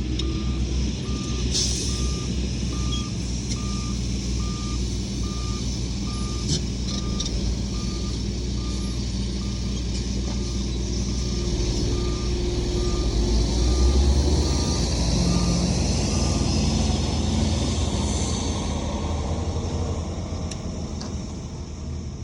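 Reverse alarm of a heavy diesel machine beeping steadily, a little over once a second, over its engine's running drone; the engine swells about two-thirds of the way in, and the beeping stops soon after.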